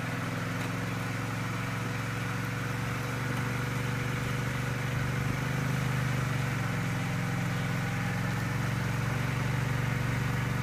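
ATV engine running steadily at low revs while the four-wheeler sits bogged in a deep mud rut.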